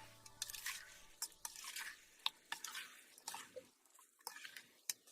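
Pork sautéing with onions and tomatoes in a pan while being stirred: faint, irregular sizzling crackles and utensil clicks.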